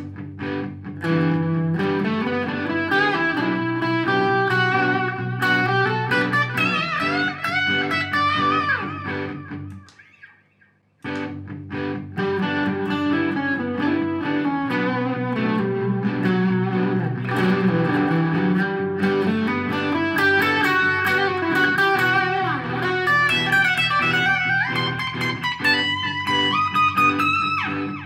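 Ibanez electric guitar playing two improvised pentatonic lead phrases in G major, with a short break about ten seconds in. The first phrase is begun from the E note and the second from the G note, to compare how each sits in the key. The second phrase has bends and slides, and sustained low notes run under both.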